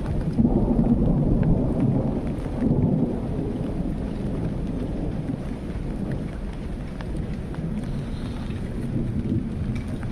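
Thunder rumbling over steady rain, loudest in the first three seconds and then dying away, with single raindrops ticking throughout.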